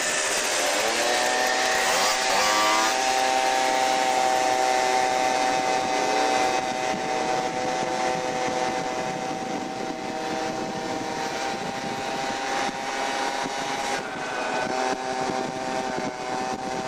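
Two-stroke scooter engine running hard while riding. Its pitch climbs over the first couple of seconds and then holds steady at high revs. Near the end it drops briefly and climbs again. Wind rushes over the microphone throughout.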